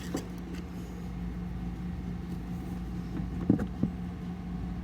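A steady low background hum, with two short knocks close together about three and a half seconds in as the cardboard box is handled.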